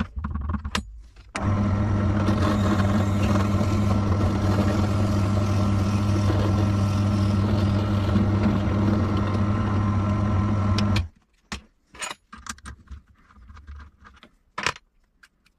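Bench drill press motor running steadily while its twist bit drills into a wooden dowel held in a lathe chuck. It starts about a second and a half in and stops abruptly after about eleven seconds, followed by a few light clicks and knocks as the workpiece is handled.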